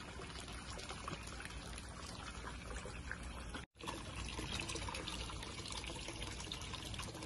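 Hot spring water pouring and trickling steadily into a bath. The sound drops out for an instant a little past halfway.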